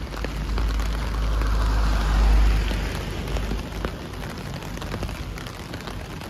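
Heavy downpour hitting a clear plastic umbrella held overhead: a steady hiss of rain with many sharp drop ticks. A low rumble swells about a second in and fades by three seconds.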